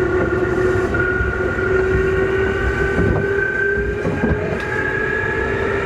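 Keikyu 2000 series DeHa 2052 traction motors whining under the floor, the whine rising slowly in pitch as the train gathers speed at low speed. This car's motors have an unusual growl at low speed, unlike the rest of the class. A few faint knocks from the wheels and track are heard under it.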